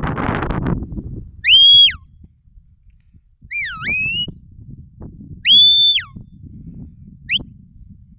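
Shepherd's whistle commands to a working sheepdog: four high notes in turn, a long steady blast, a call that dips and then rises, another long steady blast, and a short rising chirp near the end. Low wind rumble on the microphone in the first second.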